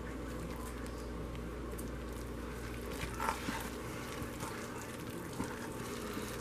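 Silicone spatula stirring thick hot-process soap paste at the Vaseline stage in a crock pot: soft squishing with a few faint scrapes against the crock, over a steady low hum.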